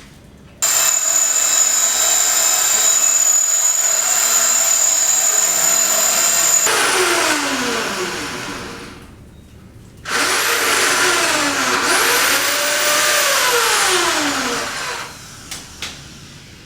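A high-speed electric power tool starts suddenly and runs at a steady high whine for about six seconds, then spins down. It is triggered again about ten seconds in, revs up sharply and winds down once more.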